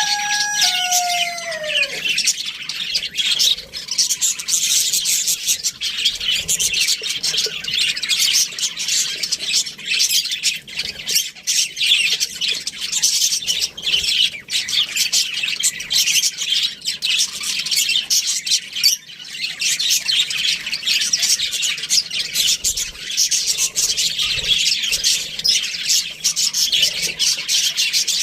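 A flock of budgerigars chirping and chattering continuously. A lower call slides down in pitch in the first second or two.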